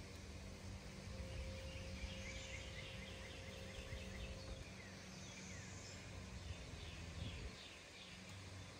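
A songbird singing two quick trilled phrases of short repeated notes, one about two seconds in and one about six seconds in, over a low rumble that drops away near the end.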